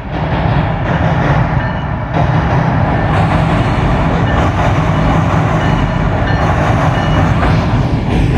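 Train running past, a loud steady rumble of wheels on rail.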